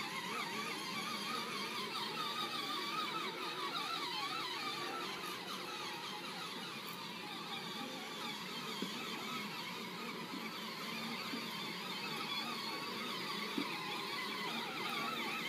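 Electric motors and gearboxes of two battery-powered ride-on toy ATVs whining as they drive over grass, the pitch wavering up and down with speed and load.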